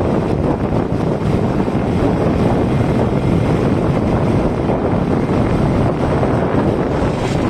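Steady, loud wind rumble buffeting the microphone of a moving vehicle, with road and vehicle noise underneath.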